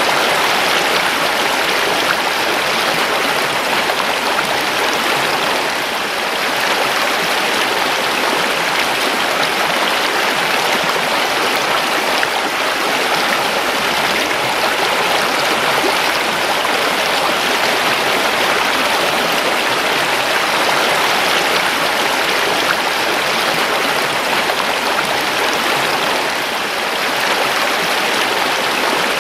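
A creek flowing: a steady rush of running water.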